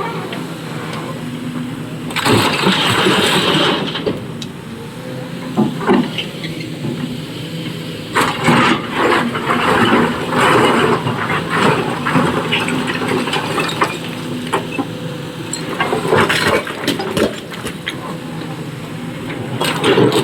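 Sany excavator's diesel engine running steadily, with loud clattering bursts of rock being dumped into a tipper truck's bed several times.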